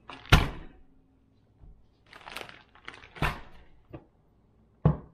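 A handful of sharp knocks and thuds, four of them loud: one just after the start, two in the middle and one near the end, with brief rustling between them.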